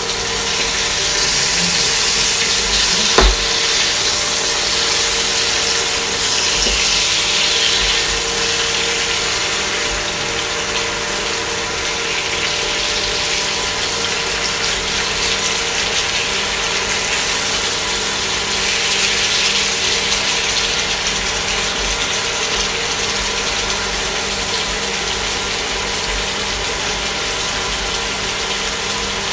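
Salmon steaks and green beans sizzling in olive oil in a frying pan, a steady crackling hiss with a faint hum underneath. A single sharp knock comes about three seconds in.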